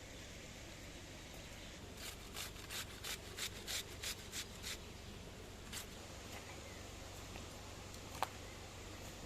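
A quick run of about nine rhythmic scraping strokes, roughly three a second, then one more stroke and a single sharp click near the end.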